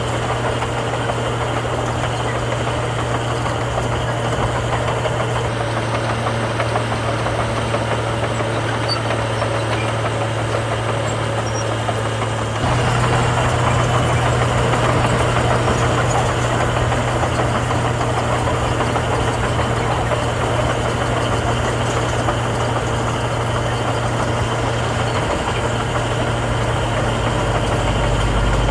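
Heavy diesel engines of earthmoving machinery running steadily, with a constant low hum; the sound steps up louder about twelve seconds in, and a deeper rumble joins near the end.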